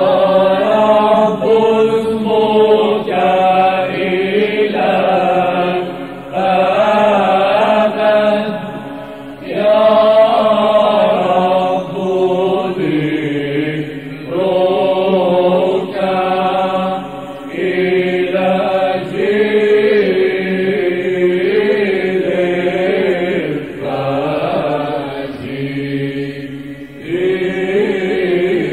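Orthodox Byzantine chant sung by male chanters: flowing melodic phrases of a few seconds each, with short breaks for breath between them. The old recording sounds dull, lacking the highs.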